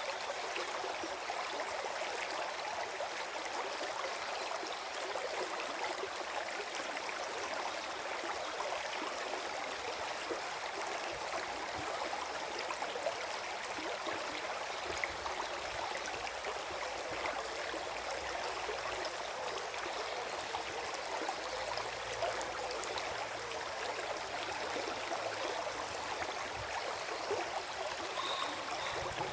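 Small forest stream gurgling and trickling over stones: a steady, even water sound.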